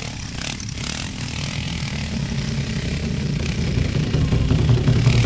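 Dirt bike engine running as the bike climbs a steep dirt slope, getting louder over the last couple of seconds.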